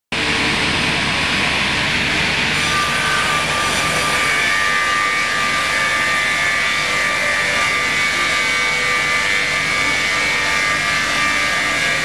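DKP6 double-blade circular sawmill running, its two perpendicular saw blades spinning with a loud, steady whine. A higher whine joins in about two and a half seconds in.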